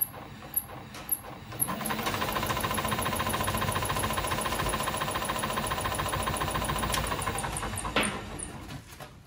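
Electric bike's BLDC hub motor wheel spinning up off the ground: faint regular ticking about twice a second, then about two seconds in it speeds up into a loud, dense rattling whir over a steady hum. Near the end there is one sharp knock and the wheel winds down.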